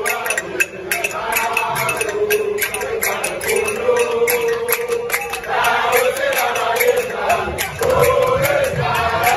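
Music: voices singing a chant-like, repeating phrase over a steady, quick percussive beat.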